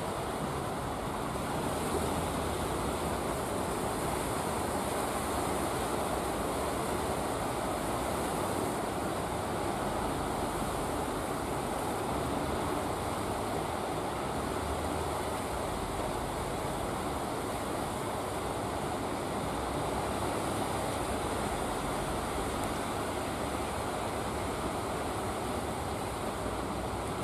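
Ocean surf breaking steadily on the shore.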